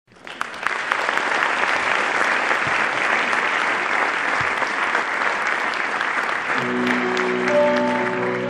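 An audience applauding, a dense patter of many hands clapping. About six and a half seconds in, soft held piano chords begin under the applause as the song's intro starts.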